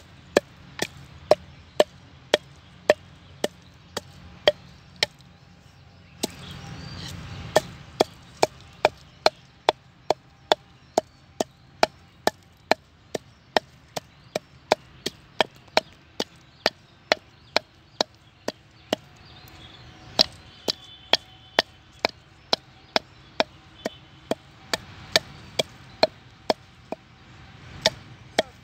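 Wooden pestle pounding red chili into paste in a wooden mortar: sharp regular knocks, about two a second, with a short break about six seconds in.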